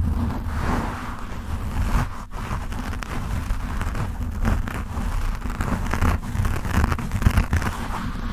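Fingertips scratching and rubbing a foam microphone windscreen right on the mic: a continuous rough scratching with a deep rumble, briefly dipping about two seconds in.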